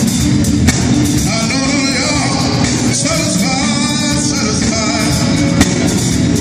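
Soul vocal group singing live with a full backing band of drums, electric guitars and keyboard. Sustained sung lines with vibrato come in about a second and a half in, over the steady band.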